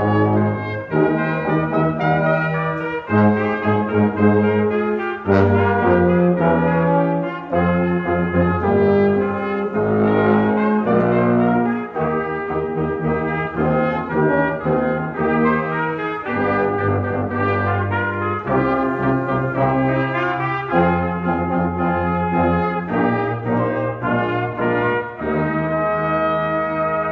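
A small brass ensemble of trombones, euphonium and tuba playing a sacred song in harmony, with held chords that change every second or so over the tuba's bass line.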